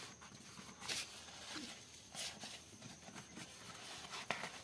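Quiet handling of paper sheets: a few soft rustles and clicks.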